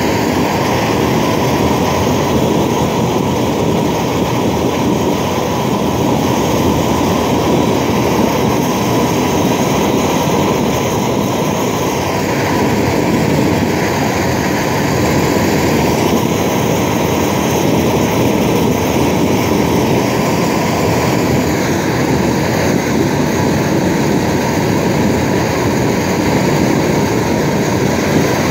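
Large propane torch burning steadily: the continuous rushing noise of its flame, played over stainless steel to heat-tint it blue.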